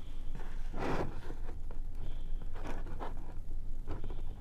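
Wire strippers and hands working on an Xbox 360 wired controller's thin wires and circuit board: a handful of short scrapes and clicks, the strongest about a second in.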